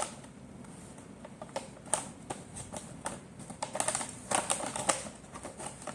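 A box of flower-pot fireworks being opened and handled by hand: scattered clicks and crinkling of the cardboard and packaging, busiest about four seconds in.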